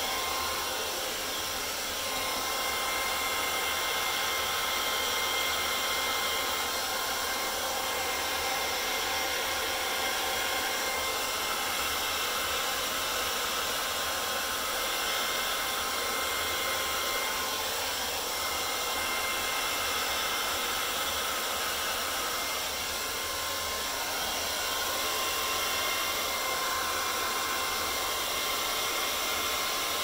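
Handheld hair dryer running steadily, a steady whine over the rush of air, its stream blowing wet acrylic paint across a canvas.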